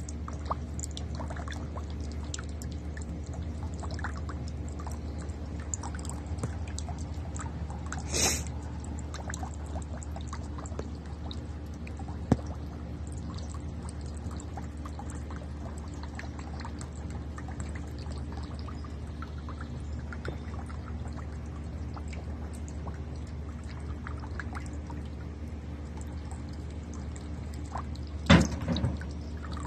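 Small birdbath fountain running, water splashing and trickling steadily over rocks, with a low steady hum underneath. A short splash comes about eight seconds in, and a louder brief thump near the end.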